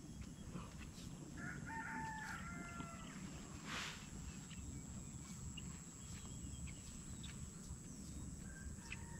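A rooster crowing, about a second and a half in, with a shorter call near the end, over a low steady rumble.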